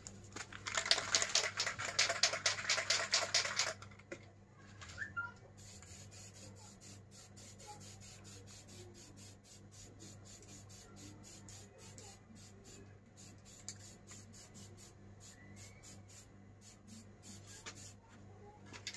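Aerosol spray-paint can shaken hard, its mixing ball rattling rapidly for about three seconds. After a short pause it sprays paint onto a motorcycle exhaust muffler in a long run of short hissing bursts.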